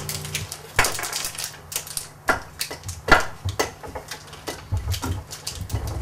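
A block of cheese rubbed down a metal box grater, in irregular rasping, clacking strokes, mixed with knife taps on a wooden cutting board.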